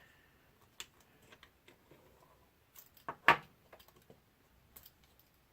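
Scattered small clicks and taps of a DJI Phantom 3 Pro camera gimbal's small parts and screws being handled during disassembly, with one sharper click about three seconds in.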